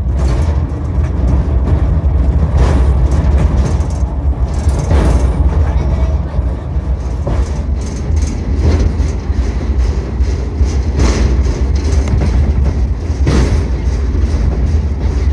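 Rail car running with a steady low rumble and a clack about every two seconds, as of wheels passing rail joints.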